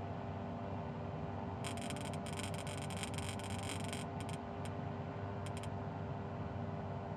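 Steady cockpit noise of a Bristell B23 light aircraft in a glide, a constant rush with a faint steady hum. From about 1.7 to 4 seconds in, a dense run of crackling clicks cuts in, followed by a few short isolated crackles.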